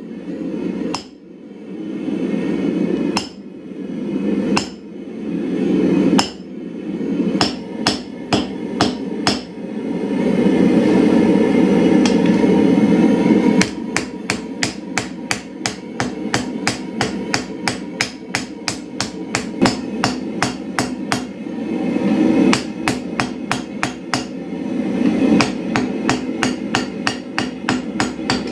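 Blacksmith's hand hammer striking red-hot blade steel on an anvil, with a metallic clang at each blow. In the first part the blows come singly, about a second apart, driving the steel over a punch set in the anvil's hardy hole to set in the handle radiuses. From about halfway they come in a fast run of about three blows a second on the anvil face.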